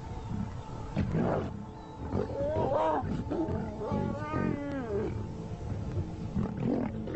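Lion snarling and growling in a series of calls, with one long call falling in pitch about four seconds in, over a steady musical drone.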